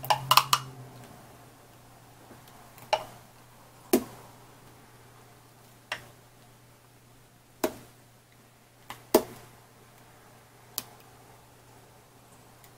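Serving ladle knocking and clinking against a glass bowl and a glass cup while a creamy dessert is spooned out: a quick run of knocks at the start, then single knocks every second or two. A faint steady low hum sits underneath.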